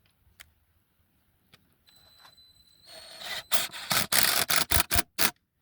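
Power drill starting with a faint high whine, then cutting into the steel of a propane tank in a run of short, loud scraping pulses on the trigger.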